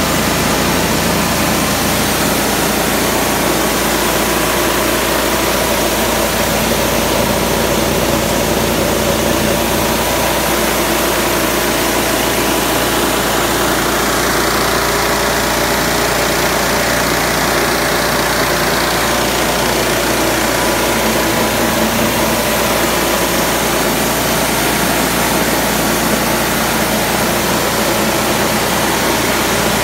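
Dry-coffee huller driven by a Honda GX 160 single-cylinder four-stroke petrol engine, running steadily.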